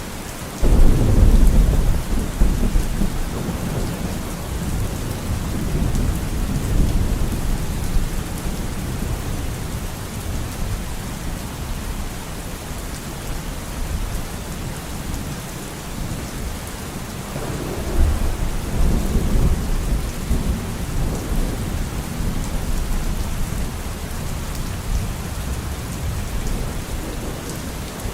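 Steady rain falling, with thunder rumbling twice: a loud crack-and-rumble about a second in that fades over several seconds, and another rumble about two-thirds of the way through.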